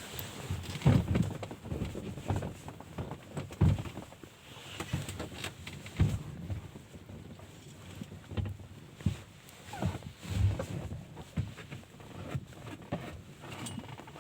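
Rear parcel shelf of a Lada Samara-family hatchback being pulled out by hand: irregular knocks, bumps and rubbing of the panel against the car's trim.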